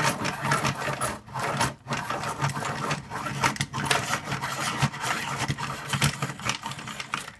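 CARL Angel-5 hand-crank pencil sharpener being cranked steadily, its blade grinding through a completely unsharpened pencil. The grinding stops abruptly at the end.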